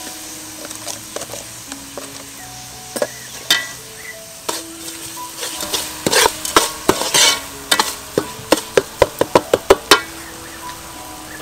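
A metal spatula stirring and scraping a spice paste frying in oil in a stainless steel pot, with a quick run of clacks against the pot, several a second, from about six to ten seconds in.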